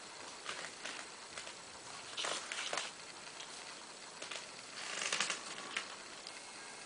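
Soft rustling and scraping in a few short, irregular bursts, the longest about two seconds in and about five seconds in.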